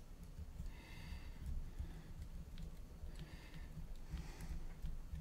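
Faint handling noise: a few light clicks as the quadcopter's frame arms and motors are turned over in the hands, over a steady low hum.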